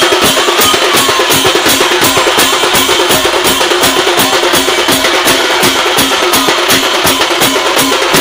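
Singha baja band playing live: drums beaten in a fast, steady rhythm of several strokes a second, with a bright, steady ringing over the beat.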